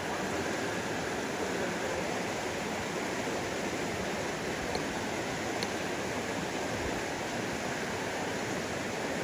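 Mountain stream rushing over rocks: a steady, even water noise with no breaks, a couple of tiny clicks about five seconds in.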